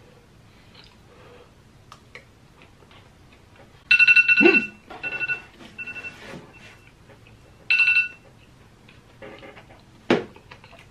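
Phone alarm sounding: a bright electronic tone pattern starts about four seconds in, repeats more faintly, and comes loud again near eight seconds. A sharp knock comes near the end, among small clicks.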